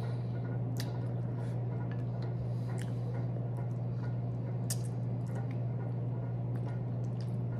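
Close-up eating sounds of chicken feet being gnawed and sucked: soft wet squishes with scattered small clicks and smacks, over a steady low hum.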